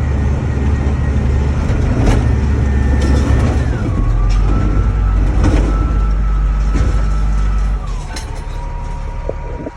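Large front-end loader's diesel engine running hard, heard from inside the cab, with a whine that drops in pitch about four seconds in and again near the end as the engine slows and gets quieter. A few sharp knocks and clanks sound over it.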